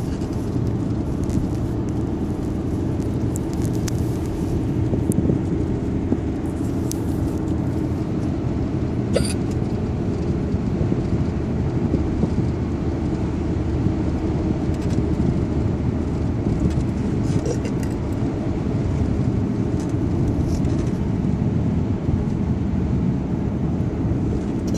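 Steady low vehicle rumble, with a few faint clicks over it.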